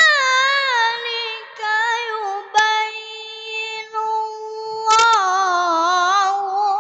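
A boy's melodic Quran recitation (tilawah), high-pitched, with long held notes that waver and turn in ornaments, broken by a few short pauses.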